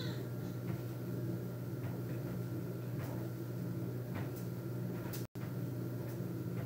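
A steady low hum with a few faint, scattered clicks and knocks.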